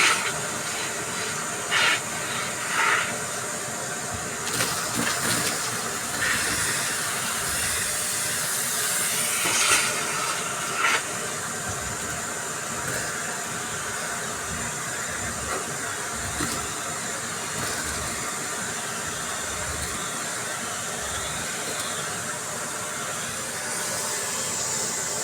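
Vacuum cleaner running with a steady rush of air. A few short, louder crunchy bursts in the first half sound like debris being sucked up.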